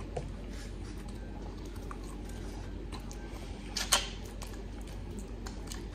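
Close-up eating sounds from a man eating chicken wings: scattered small mouth clicks and lip smacks, with one sharp, louder smack about four seconds in as he pulls meat off the bone. A faint steady low hum runs underneath.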